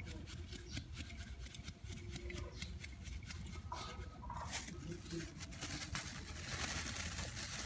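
Gram flour being sifted through a round tin mesh sieve by hand: rapid small taps and rattles as the sieve is shaken, with the soft hiss of flour falling through the mesh, heavier near the end.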